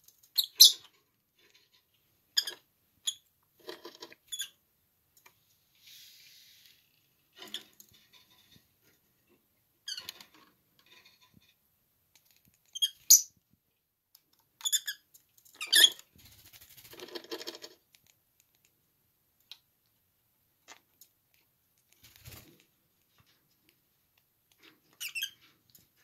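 Peach-faced lovebird giving short, sharp, high chirps and squeaks, one at a time with pauses between, mixed with light taps and scratchy scrapes.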